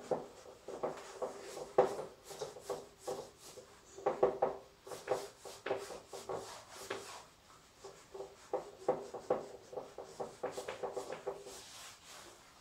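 Whiteboard being wiped clean with a hand-held cloth: quick, irregular back-and-forth rubbing strokes, several a second, that thin out near the end.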